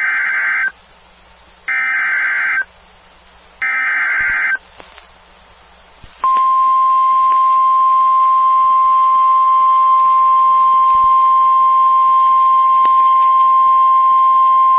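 Emergency Alert System SAME header: three one-second bursts of digital data tones, a second apart, encoding a severe thunderstorm warning. After a short pause, the NOAA Weather Radio 1050 Hz warning alarm tone sounds as one steady high tone for about nine seconds.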